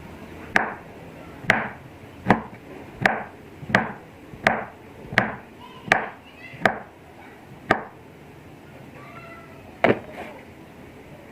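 Knife chopping on a cutting board: about ten sharp strokes, one every three-quarters of a second, then a pause and one more stroke near the end.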